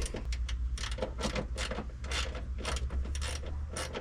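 Ratchet wrench clicking in short repeated strokes, about two a second, as a bolt is turned at a ground point. A steady low hum runs underneath.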